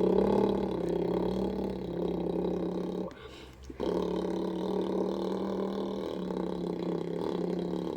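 A boy imitating a BMW E60 M5's V10 engine with his mouth: a buzzing, held vocal note with small steps in pitch, broken by a short pause for breath about three seconds in, then held again.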